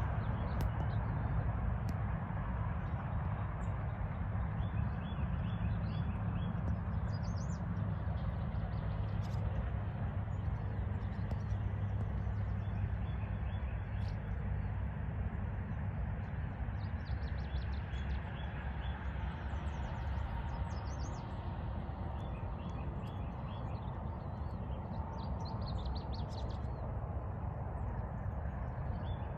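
Small birds chirping and calling on and off over a steady low rumble.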